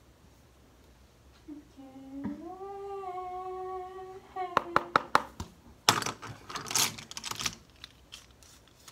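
A person humming one held note with closed lips, gliding up at the start and then holding steady for about two seconds. It is followed by several sharp clicks and a second or so of loud handling noise.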